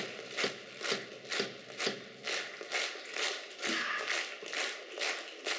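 Concert audience clapping in unison, a steady rhythm of a little over two claps a second.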